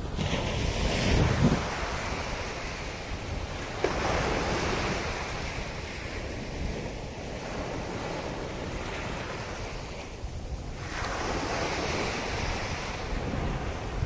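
Ocean surf washing onto a beach in a steady rush, with a wave surging about four seconds in and another about eleven seconds in. Low rumbles of wind buffet the microphone in the first second or so.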